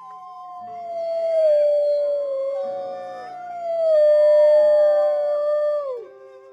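Wolf howling: two long howls, the second beginning just as the first trails off, each sliding slowly down in pitch and dropping away at the end.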